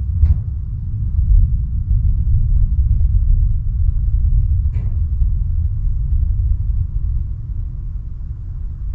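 Thunder rolling: a long, deep rumble that swells in the first second or so and then slowly dies away over the following seconds.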